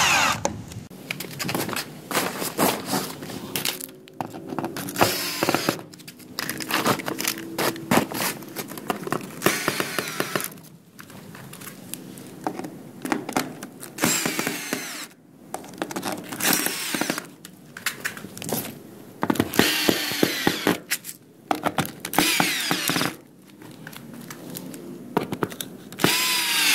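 Cordless drill with a hex driver socket driving hex-head washer screws through the bottom of tarp-covered carport side panels, in about seven short runs of motor whine that rise and fall in pitch. Clicks and knocks from handling the drill and screws come between the runs.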